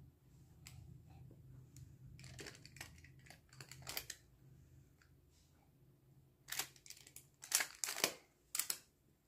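Clear plastic magnetic building tiles clicking and clattering as triangle pieces are handled and snapped together. The clicks come in scattered clusters, the loudest about two-thirds of the way through.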